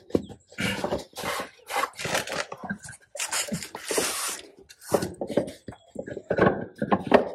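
Irregular bursts of close rubbing and scraping handling noise.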